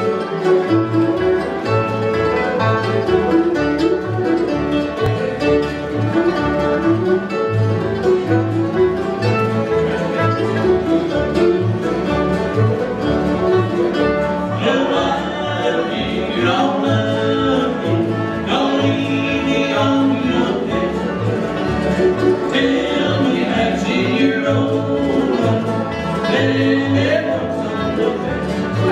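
Live acoustic bluegrass band playing: banjo, acoustic guitars, mandolin and a plucked upright bass keeping a steady beat. Voices join in singing from about halfway through.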